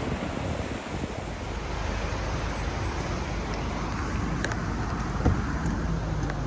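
Steady rushing noise of wind and water, with a low rumble of road traffic building from about a second in, and a few sharp clicks near the end.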